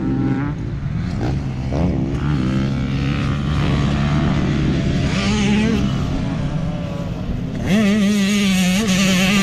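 Motocross dirt bike engines revving as several bikes ride the track, the pitch rising and falling with throttle and gear changes. About eight seconds in, one bike gets much louder and holds a steady high rev.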